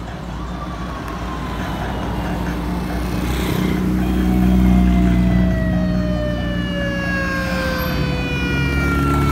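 Motorbikes, scooters and an open jeep passing close by in a convoy, their engines running and swelling loudest about halfway through. Over the engines, high tones glide slowly down in pitch, each over several seconds.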